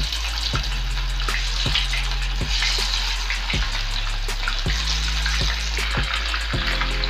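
Flour-coated mushroom pieces sizzling steadily as they deep-fry in hot oil, over background music with a regular beat.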